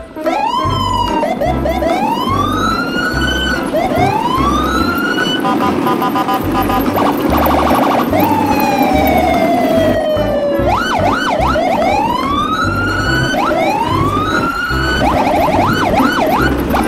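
Siren sound effects over an electronic music track with a steady low beat: repeated rising whoops, a long falling wail about eight seconds in, and fast warbling yelps.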